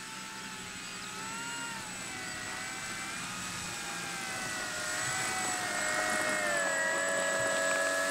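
Electric motor and propeller of an RC Flex Innovations RV8 model plane at low throttle while taxiing on grass: a steady whine whose pitch wavers up and down and sags in the second half, growing louder as the plane comes closer.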